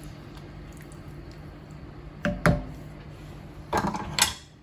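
Kitchenware being handled: two sharp knocks a little over two seconds in, then a longer clatter near the end, over a steady low hum.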